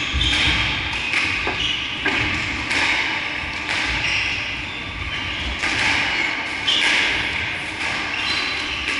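Squash ball being hit in a rally: irregular sharp knocks of ball off racket and court walls, with short high squeaks from shoes on the wooden floor between them.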